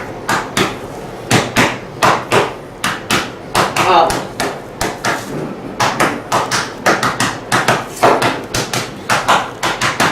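A fast, irregular run of knocking blows, about two to three a second, continuing without a break.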